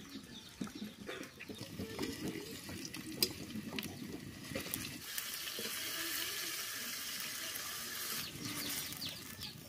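Water sloshing as a hand squeezes and mixes spice paste in a steel bowl, then a steady sizzle from about halfway through as the spiced water is poured into the hot oil in the iron karahi.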